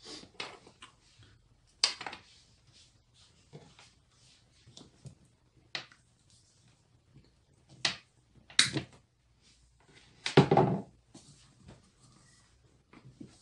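Scattered clicks and knocks of hard plastic parts being handled and fitted into an opened hot glue gun housing, with sharper taps about 2, 8 and 9 seconds in and a longer scraping rustle a little after 10 seconds.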